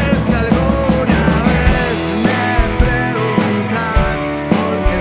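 Rock band playing an instrumental passage between sung lines: drum kit, bass and guitars with a steady beat, and a melodic lead line that bends in pitch.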